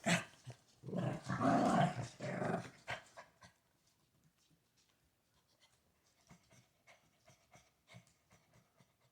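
Excited dog vocalising for about two seconds, in a pitch that rises and falls, as it begs for food it can smell; then only faint scattered clicks.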